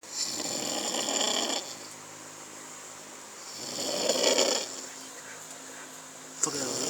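A sleeping person snoring heavily, three rasping snores about three seconds apart, one with each breath. The last one starts sharply just before the end.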